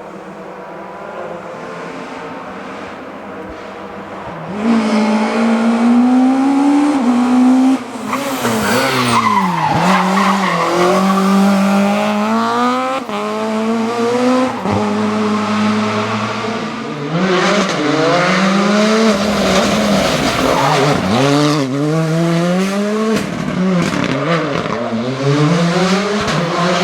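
Rally car engine driven hard: faint at first, then loud from about four seconds in, its pitch climbing and dropping again and again as it shifts gears and lifts off for corners.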